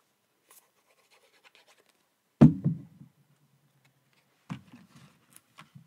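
Card being handled and pressed down onto a card blank on a craft mat: light paper scraping, then a dull thump about two and a half seconds in, a softer thump about two seconds later, and a few small clicks near the end.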